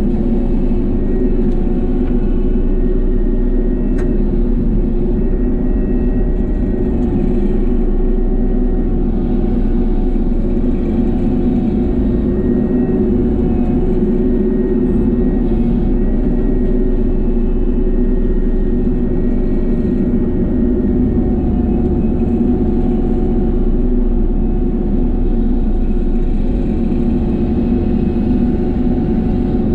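Small excavator's engine and hydraulics running steadily under load, powering a 42-inch Bushmaster brush cutter with bush hog blades as it cuts heavy brush. There is a single faint click about four seconds in.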